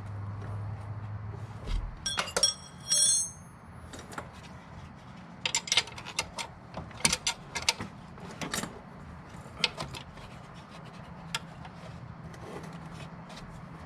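Metal hand tools and parts clinking and rattling, with a short ringing clang about two to three seconds in and scattered irregular clicks after it. A low hum stops about two seconds in.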